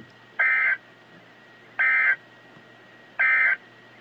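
Three short bursts of Emergency Alert System digital data tones, a buzzy warble of about a third of a second each, evenly spaced about a second and a half apart: the end-of-message code that closes an EAS alert.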